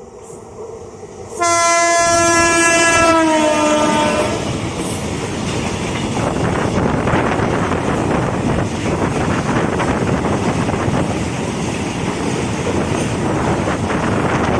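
A WAG-9HC electric locomotive's horn blasts loudly about a second in as it passes at speed, its pitch dropping. Then a long string of oil tank wagons rushes past with rapid wheel clatter on the rails.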